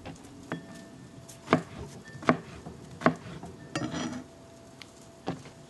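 Chef's knife slicing a cucumber into thick rounds on a cutting board. The blade knocks against the board with each cut, about six cuts spaced roughly three-quarters of a second apart.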